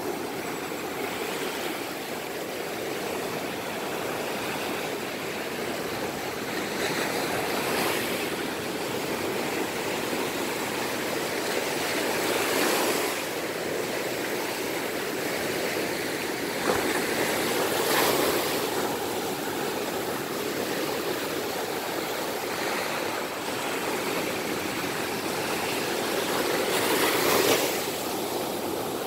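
Ocean surf: a steady rush of foaming whitewater washing up the sand, swelling louder each time a wave breaks, every five seconds or so.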